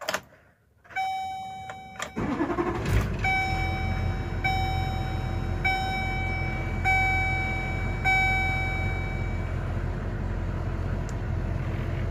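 Key click, then the 2005 Chevrolet Kodiak C4500's diesel engine cranks and fires about two to three seconds in and settles into a steady idle. A dashboard warning chime dings about every second over the idle and stops near the end.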